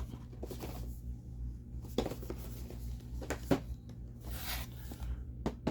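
Action-figure packaging being handled: a few sharp clicks and taps and a brief rustle about four seconds in, over a steady low hum.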